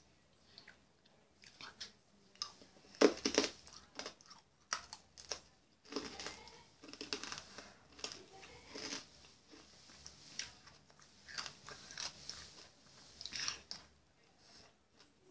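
Chewing and crunching on a Toxic Waste sour hard candy close to the microphone: irregular crunches, the loudest about three seconds in.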